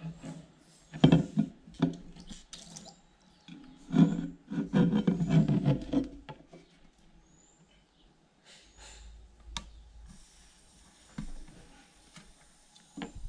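An aluminium drink can being handled on a tabletop: knocks and rubbing as it is moved and laid on its side. The handling is loudest about a second in and from about four to six seconds in, with a few single clicks later.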